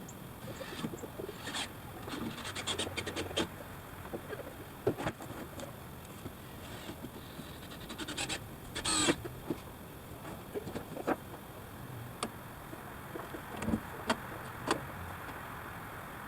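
Irregular knocks, taps and clatter of carpentry work on wooden barn framing: a quick run of small knocks a few seconds in, a louder knock about halfway, and several single sharp knocks near the end.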